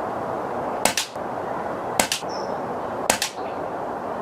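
Air rifle firing a quick string of shots about a second apart, each a sharp crack followed a split second later by a second smack, the pellet striking the target.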